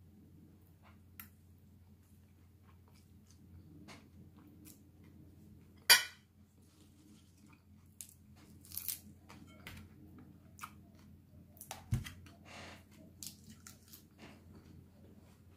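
A person eating a khanom jeen and tuna larb salad: scattered chewing and crunching with small clicks, and one sharp knock about six seconds in that is the loudest sound.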